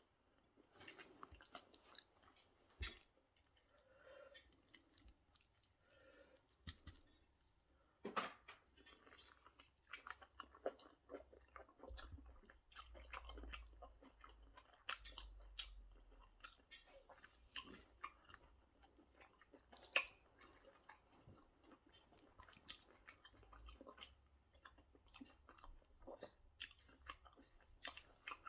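Close-miked chewing and wet mouth clicks of a person eating soft pounded yam with egusi soup, in short irregular smacks with a few louder ones.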